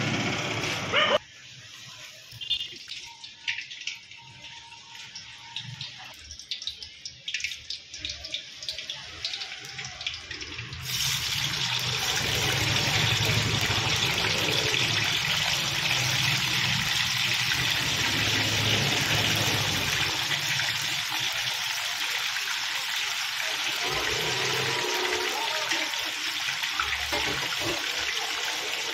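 Marinated chicken pieces deep-frying in hot oil in an iron kadai: quiet oil with a few pops at first, then a sudden steady loud sizzle from about eleven seconds in as the chicken goes into the oil.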